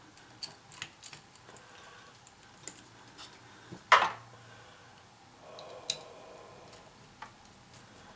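Light clicks and taps of hard plastic parts and tools being handled during disassembly of a humidifier's fan housing, with one sharp knock about four seconds in.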